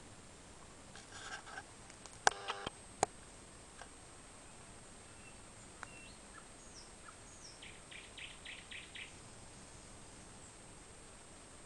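Thrush nightingale singing in short, scattered phrases: a few loud, sharp clacking notes about two seconds in, some thin whistled notes, then a rapid rattle of about seven notes past the middle, over faint steady hiss.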